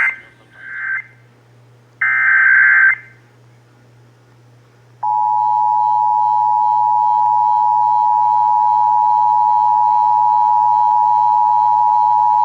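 Emergency Alert System broadcast tones. In the first three seconds come short bursts of SAME digital data tones, a screeching warble; the last burst lasts about a second. About five seconds in, the loud, steady two-tone EAS attention signal starts, marking the opening of a Required Monthly Test alert.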